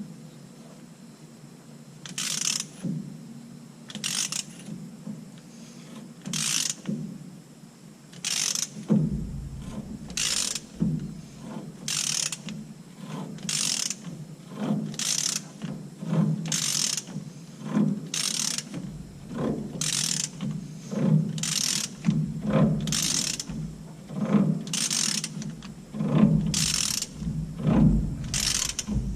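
Hand ratchet tightening a nut on a Ford F-150's rear differential during a seal replacement, in a steady rhythm of strokes with a burst of pawl clicks on each back-swing, about one every one and a half to two seconds. From about nine seconds in, a low thump comes with most strokes as the nut tightens up.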